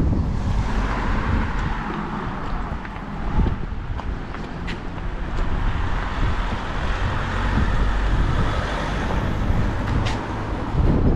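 Wind buffeting the camera microphone in an uneven low rumble, over a steady rushing outdoor noise.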